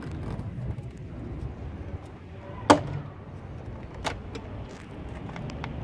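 Sharp plastic clicks from a BMW E90 door trim panel being worked free of the door: one loud snap about halfway through and a smaller click a second and a half later, over a low steady rumble.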